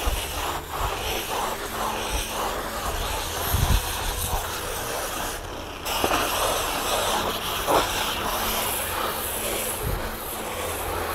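Electric variable-speed grinder with a crimped wire cup brush running against a headliner board, scrubbing off the old deteriorated foam backing. A continuous, gritty scraping whir that dips briefly about halfway through.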